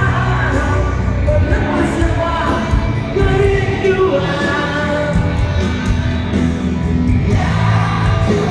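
Pop-rock music with a singer, played loud through a large stadium concert sound system, with a steady heavy bass and the long echo of the open stadium.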